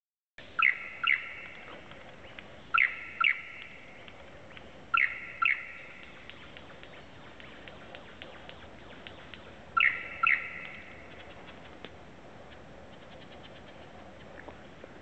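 Lyrebird calling in display: four pairs of loud, short ringing notes, the two notes of each pair about half a second apart, each trailing off in an echo. Fainter clicks and notes sound in between.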